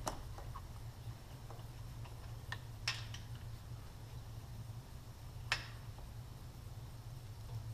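A few isolated sharp metallic clicks and taps of hand tools working the motorcycle's seat bolts, the strongest about five and a half seconds in, over a steady low hum.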